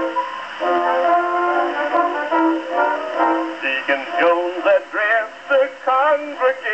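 An early acoustic 78 rpm record played through a Victor Type II horn gramophone. A brass-led instrumental introduction is followed, a little over halfway through, by a male baritone starting to sing with a wide vibrato. The sound is thin and narrow-band.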